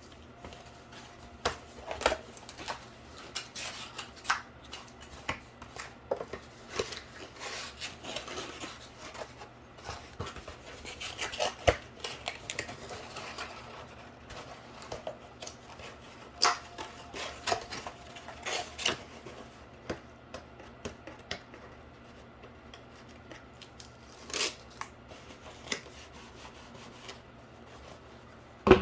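Cardboard being worked by hand: irregular taps, clicks, scrapes and rustles as pieces are handled and put together, busiest in the first twenty seconds and sparser near the end.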